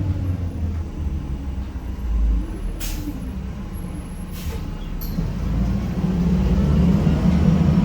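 Cummins ISM diesel engine of a Gillig Phantom transit bus running with a low hum. Two short bursts of air hiss, typical of the air brakes, come about three seconds in and again a second and a half later, and the engine grows louder near the end.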